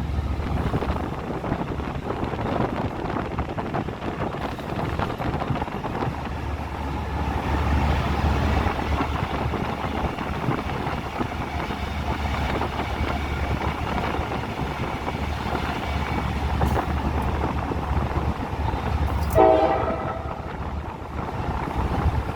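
Train running on rails, a steady rumble and clatter throughout. A short horn blast sounds near the end.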